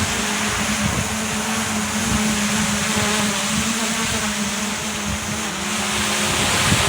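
DJI Mini 3 Pro quadcopter's propellers humming at a steady pitch, with gusty wind buffeting the microphone.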